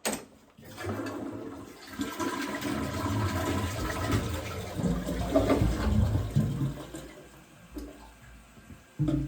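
A toilet being flushed: a click of the handle, then water rushing and gurgling down the bowl for about six seconds before tapering off. It is a test flush of a drain line that has just been snaked.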